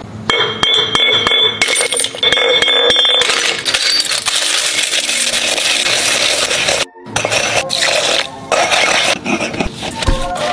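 Green glass beer bottles being smashed and ground with a pestle in a stone mortar: glass shards clinking and scraping against the stone. The glass is being worked down to a gritty powder.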